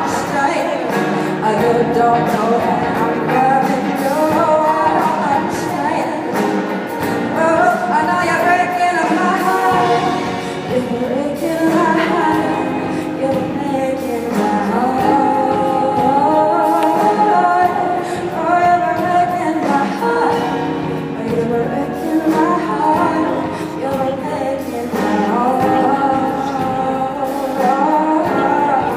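Live pop song: a singer's voice over a band, with drums keeping time.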